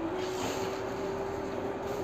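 Steady room noise: a constant hiss with a faint steady hum.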